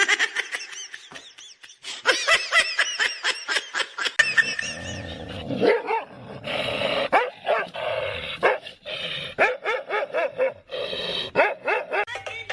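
A dog barking and yapping over and over in quick runs of short, high calls.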